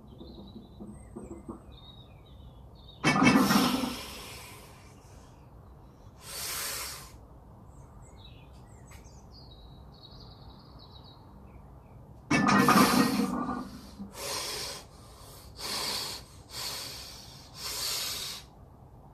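A lifter's forceful, straining breaths under a heavy 120 kg bench press: two loud grunting exhalations about nine seconds apart, a softer breath between them, then a run of four shorter hard breaths near the end.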